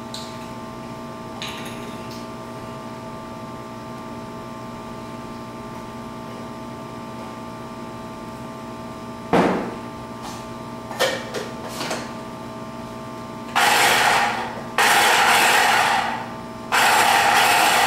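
Small kitchen chopper running in three short pulses, chopping garlic cloves with olive oil, over a steady background hum; a single knock comes about nine seconds in.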